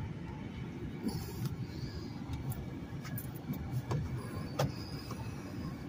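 Car rolling slowly, heard from inside the cabin: a steady low rumble of engine and tyres, with a few light clicks, the sharpest about four and a half seconds in.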